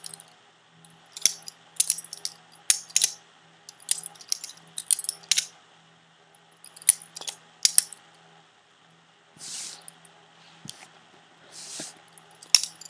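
Butterfly knife (balisong) being flipped open and shut by hand: its metal handles and blade clack and clink in quick clusters of a few clicks each, with a quieter gap in the middle before more clicks near the end.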